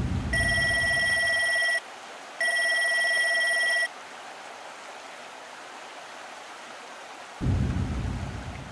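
Two electronic ringing tones, like a telephone ringing, each about a second and a half long with a short gap between, over a steady hiss. Near the end a deep boom comes in and dies away.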